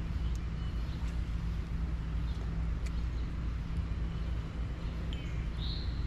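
Steady low hum of a small boat motor running, with a few faint ticks and a short bird chirp near the end.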